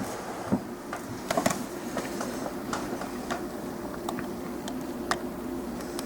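Light clicks and taps of a plastic Transformers Air Raid jet toy being handled and turned, a few in quick succession about a second and a half in, over a steady low hum.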